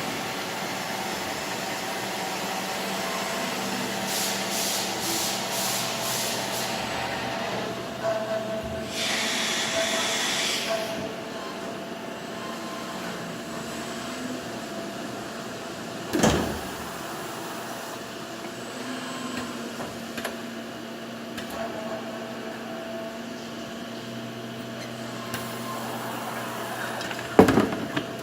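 CNC lathe with an automatic loader running: a steady machine hum with a held whine, a hiss lasting about two seconds near the middle of the first half, and two sharp clunks, one about halfway through and one near the end.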